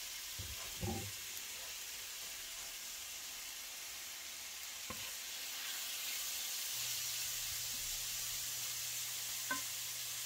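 Chicken pieces sizzling in oil in a cast-iron skillet, a steady hiss, with a few knocks of a wooden spoon against the pan as they are stirred. A faint low hum comes in about two-thirds of the way through.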